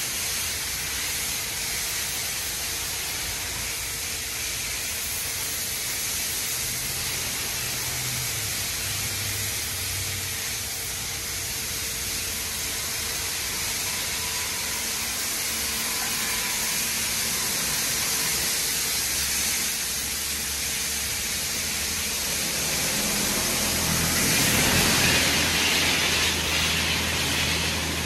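PDQ LaserWash 4000 touchless car wash spraying water over the car, a steady hiss of spray that gets louder near the end.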